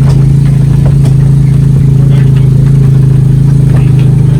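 An engine running steadily with a loud, even low hum and a slight regular pulse.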